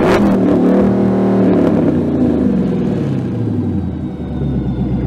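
Dodge Charger Daytona's Hemi V8 with a Solo Performance cat-back exhaust and an aftermarket cam, revved sharply once at the start. The revs then sink slowly back over about four seconds to a steady, deep idle.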